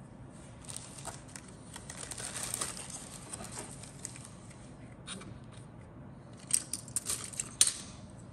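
Hard plastic model-kit sprues and parts being handled: a crinkling rustle, then sharp clicks and clatter as the plastic pieces knock together, loudest in a quick cluster near the end.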